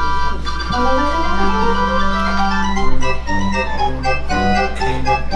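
Recorded music with an electronic organ-like keyboard sound: held chords with a rising sweep about half a second in, then a pulsing bass beat from about three seconds in, over a steady low hum.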